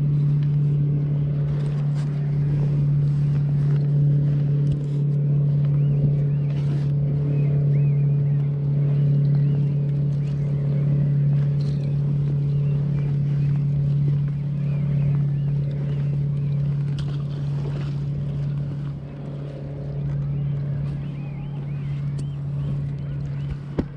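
A steady low engine hum that holds one pitch throughout, with a few faint clicks from rope and pot handling on top.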